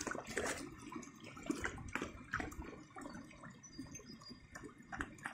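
A dog wading and drinking in a shallow rock pool of creek water: small irregular splashes and drips, loudest near the start and growing quieter.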